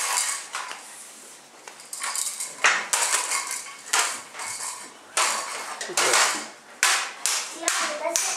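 Toy xylophone struck with a mallet: a string of bright, ringing taps at uneven intervals, several in quick succession near the end.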